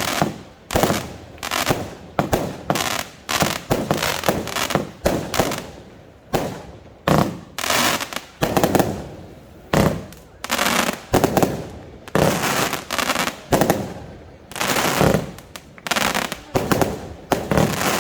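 Consumer firework compound battery firing shot after shot: a steady run of loud bangs, roughly two a second, each trailing off briefly before the next.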